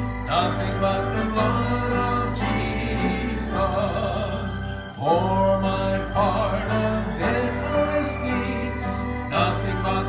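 A man singing a gospel hymn into a handheld microphone, holding long notes with vibrato over an instrumental accompaniment with sustained bass notes.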